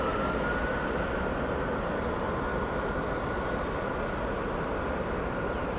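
Steady distant mechanical drone with a low rumble and a thin continuous whine that rises slightly in pitch about half a second in, then holds: the ongoing noise nuisance being documented.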